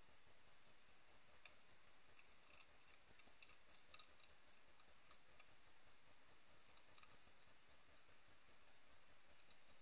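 Faint, irregular clicking of European hedgehogs chewing food from feeding bowls, in small runs: a cluster in the first half and a few more near the end. It sits over a steady low hiss.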